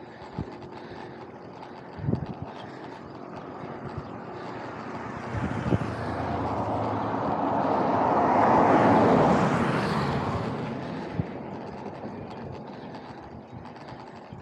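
A pickup truck passes in the oncoming lane: its engine and tyre noise swells over several seconds, is loudest about nine seconds in, then fades away. Short low thumps come and go underneath.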